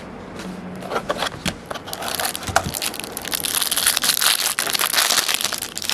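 Clear plastic wrapper on a sports-card pack crinkling and crackling as it is pulled open by hand. A few scattered clicks and rustles come first, then dense crinkling from about two seconds in.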